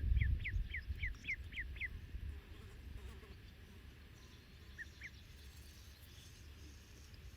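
A duck calling: a quick run of about seven short, high peeps in the first two seconds, then two more about five seconds in. Low rumble underneath at the start.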